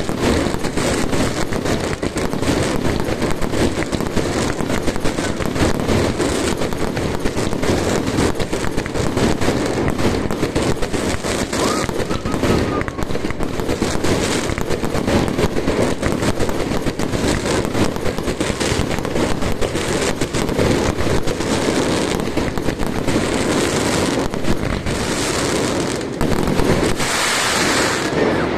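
Ground firework crackling continuously with a dense rattle of rapid pops. A louder flurry comes just before it dies away near the end.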